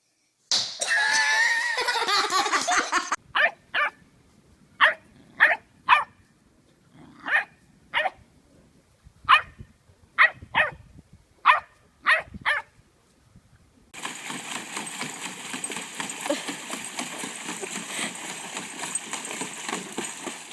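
A dog barking, about a dozen short, sharp barks with uneven gaps between them. They follow a loud, wavering pitched sound at the start, and a steady hiss takes over for the last several seconds.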